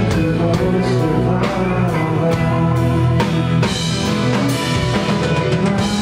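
Live rock band playing with drums, bass and electric guitar, the drums keeping a steady beat of about two hits a second.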